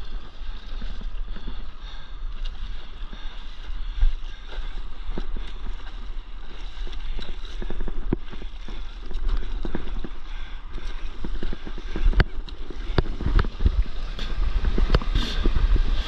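Wind rumbling on the microphone over water splashing and slapping against a stand-up paddleboard moving through choppy sea. The splashes come more often and louder in the last few seconds.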